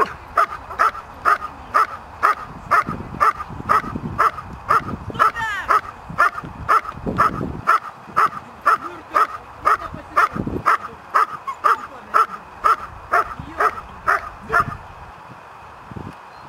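Working-line German Shepherd barking over and over in a steady rhythm, about two to three barks a second, stopping near the end.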